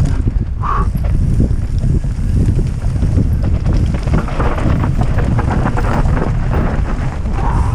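Wind buffeting the microphone over the rumble and rattle of a mountain bike descending a dirt trail, with frequent clicks and clatters as it rides over rough ground.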